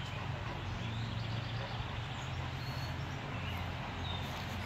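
Steady low outdoor background rumble with a few short, faint high bird chirps scattered through it.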